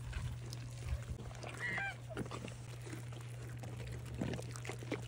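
Goats chewing bananas, with scattered soft crunches and mouth clicks. A short high-pitched animal call comes just under two seconds in, over a steady low hum.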